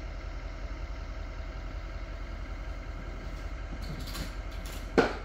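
Steady low mechanical hum of an engine or motor running. Near the end comes a single short voice-like call.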